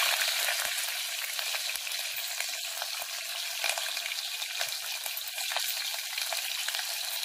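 Sliced onion and green chillies sizzling and crackling in hot oil with mustard seeds and cumin in a stainless steel pot, just added to the tempering. The sizzle is loudest at the start and settles within about a second into a steady crackle.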